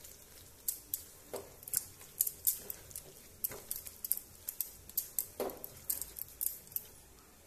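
Grated apple frying in ghee, stirred with a silicone spatula in a nonstick pan: irregular soft scrapes, squelches and little crackles, several a second, as the apple's water cooks off.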